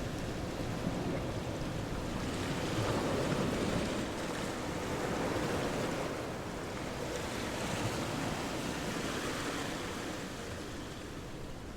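Ocean surf breaking and washing in, the rush rising and falling every few seconds.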